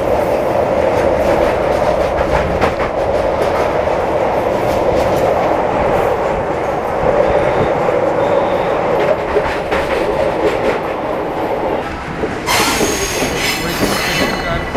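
Passenger train running over a river bridge, heard at an open coach door: a loud, steady rumble of wheels on rails with a stream of rail-joint clacks. Near the end a harsh, high hissing screech joins in.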